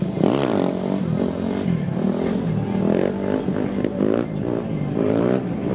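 Vehicle engine revving up and down over and over, its pitch sweeping up and falling back about every half second.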